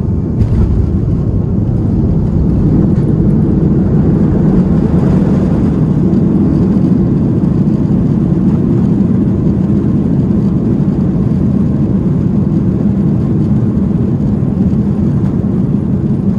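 Boeing 737-200's Pratt & Whitney JT8D-9A engines in reverse thrust during the landing rollout, heard inside the cabin behind the wing: a loud, steady, low roar that swells about two and a half seconds in and holds. A sharp knock comes about half a second in.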